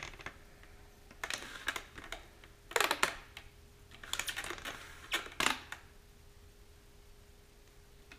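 Hands pressing and rubbing a thick prismatic reflective decal stripe onto a rocket body tube: four short bursts of crackly, tapping rubs over the first five and a half seconds, then it goes quiet.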